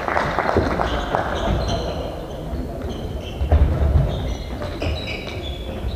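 Game sounds in a large sports hall: short high shoe squeaks on the court floor, knocks, and low thuds of running feet, echoing around the hall. The heaviest thuds come a little past halfway.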